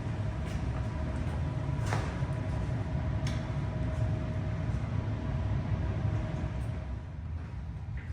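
Steady low rumble with a faint steady whine, typical of an elevator car in motion, with a few sharp clicks; the whine stops and the rumble eases about seven seconds in as the car comes to a halt.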